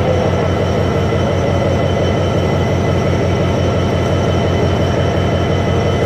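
Class 66 diesel-electric locomotive standing with its two-stroke V12 diesel engine idling: a steady, even low throb with a faint steady whine above it.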